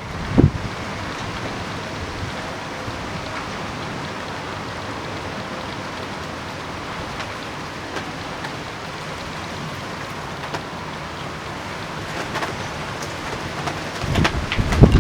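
Steady rain falling during a thunderstorm, an even hiss. Wind gusts buffet the microphone again near the end.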